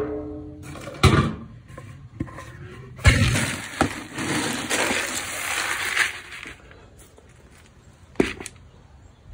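A plastic scoop knocking against a galvanized metal can and digging into dry shelled corn. The kernels rattle and pour for about three seconds in the middle, and there is a sharp knock near the end.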